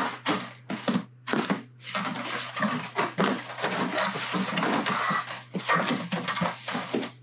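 Packing tape being pulled off the roll in several long rasping strips while a cardboard box is built, with shorter scrapes and knocks of cardboard in between. A steady low hum runs underneath.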